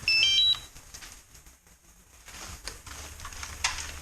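Short electronic chime of three or four quick beeps stepping up in pitch, right at the start, followed by faint clicks of handling.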